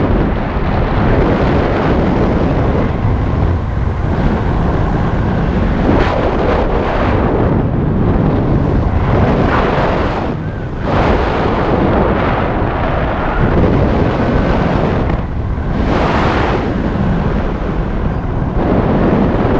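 Wind rushing over a BASE jumper's helmet-camera microphone during the descent: a loud, continuous rush that swells and eases, dropping off briefly twice.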